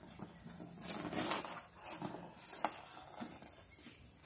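A cardboard box being handled and pulled open, with scattered crinkles, scrapes and rustles of the cardboard.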